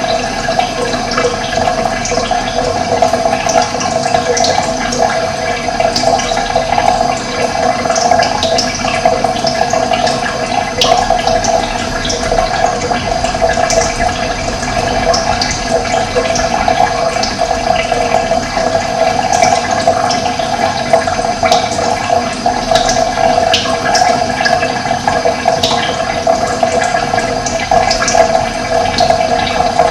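Running water, a steady rush with many brief, scattered high ticks.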